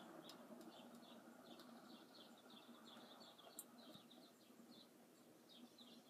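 Near silence: a Moss TFB-42 ceiling fan running quietly on medium speed, a faint steady hum, with faint short high-pitched chirps repeating irregularly.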